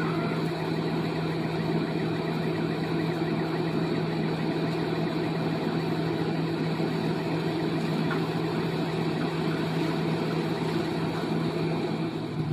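Heavy diesel engine idling steadily: an even, unchanging low hum.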